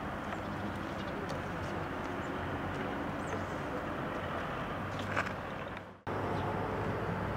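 Outdoor town ambience: a steady low hum of distant traffic with a few faint ticks. It drops out abruptly for a moment about six seconds in, then resumes.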